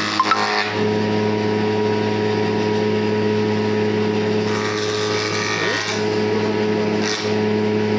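Electric wood planer running with a steady motor hum, planing mango wood; a rougher hiss rises about four and a half seconds in and again briefly near the end as the cutter takes wood.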